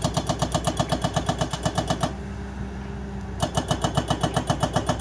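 Excavator diesel engine running with a fast, even pulsing beat, about five or six a second. The beat cuts out for just over a second partway through, leaving a steady hum, then starts again.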